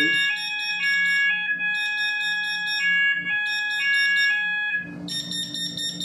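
Apollo addressable fire alarm sounder beacon sounding its alarm: a pattern of tones switching pitch several times a second over a steady high tone. It was set off by a smoke detector sprayed with test smoke. About five seconds in, the pattern changes and the sound drops in level.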